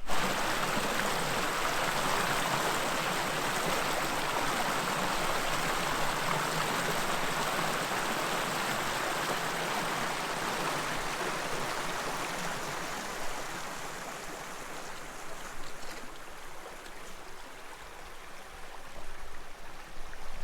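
Shallow rocky creek water rushing and gurgling over stones in a steady wash. It grows quieter about two-thirds of the way through, with a few soft bumps near the end.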